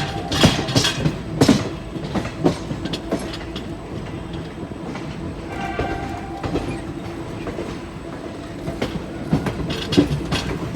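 Indian Railways train rolling on the track, its wheels clattering over rail joints in irregular knocks over a steady rumble. A brief pitched whine comes about six seconds in.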